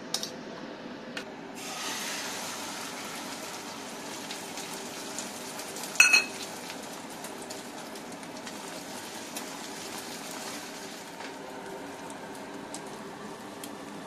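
A spoon clinking against a steel bowl as eggs are beaten, then an egg-and-onion omelette sizzling steadily in a frying pan from about a second and a half in. About six seconds in there is a single loud, ringing metal clink.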